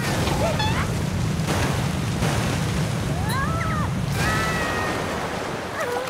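A loud, steady rumbling, rushing noise, heavy in the low end, with a few short, squeaky, gliding cartoon voice sounds on top, about half a second in, around three seconds in and just after four seconds.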